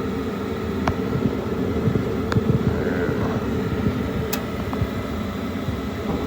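Bryant Plus 80 gas furnace blower running steadily with a low hum, now powered by a replacement control board after the old board's relay failed to send power to the motor. A few light clicks sound over it.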